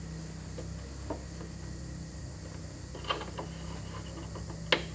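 A rubber catch-can hose being handled and pressed into place in an engine bay: faint rubbing and light knocks, with a short sharp click about three seconds in and a louder one near the end, over a steady low hum.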